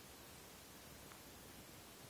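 Near silence: faint steady hiss of room tone.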